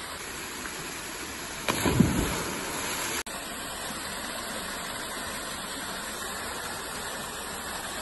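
Waterfall plunging into a rock pool: a steady rush of falling water. About two seconds in a louder, rumbling swell rises over it and cuts off abruptly just after three seconds.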